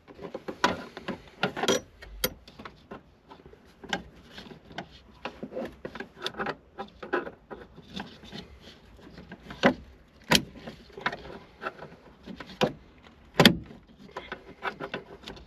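Irregular clicks, knocks and rubbing of hands working the accelerator pedal bracket and its clip, with two sharper knocks about ten and thirteen seconds in.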